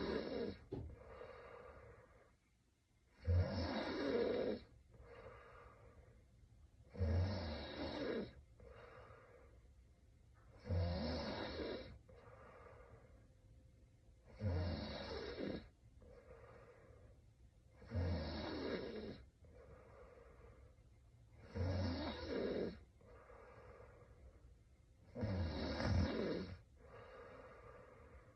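A woman snoring in her sleep, slow and regular: a loud snore on each in-breath about every three and a half to four seconds, each followed by a fainter out-breath.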